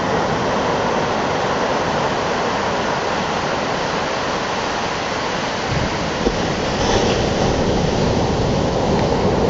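Ocean surf: waves breaking offshore and foamy water washing up and back over the wet sand, a steady rushing noise. It swells a little louder about six seconds in, with a short low thump.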